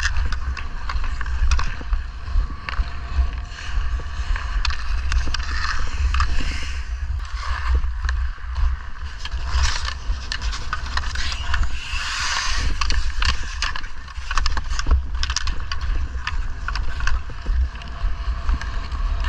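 Ice hockey play heard from a body-worn GoPro: a steady wind rumble on the microphone, skate blades scraping and carving the ice, and many sharp clicks of sticks hitting the puck and the ice.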